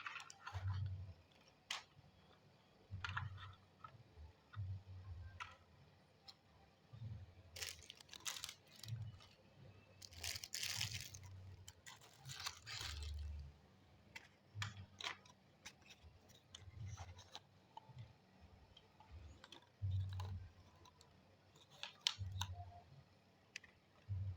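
Faint, irregular clicks and soft low thumps from small objects being handled, with no motor running.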